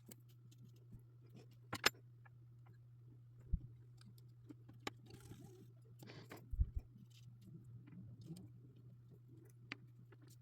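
Scattered faint clicks and small rattles of jumper wires being handled and pushed into a breadboard's contact holes, over a steady low hum.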